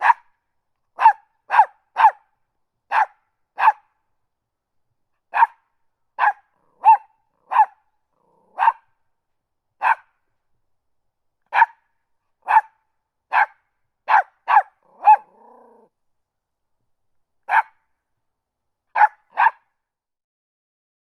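Small dog barking: about twenty short, sharp, high-pitched barks, singly and in quick runs of two or three, with pauses between; one bark around the middle trails off into a brief low growl.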